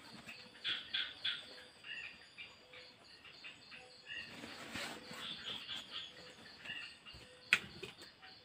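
Birds chirping, short repeated notes, over the rustle of clothes being stuffed into a fabric backpack, with one sharp click about seven and a half seconds in.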